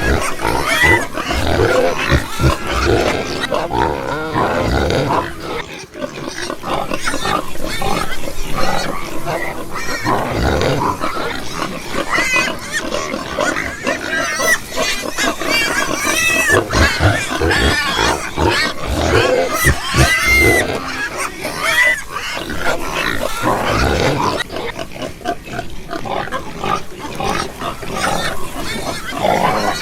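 Domestic pigs grunting and squealing: a dense, continuous run of overlapping grunts with short high squeals now and then.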